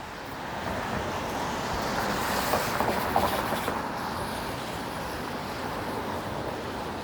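Downtown street traffic on wet pavement: a passing vehicle's tyre hiss swells about two to three seconds in, then eases back to a steady traffic wash.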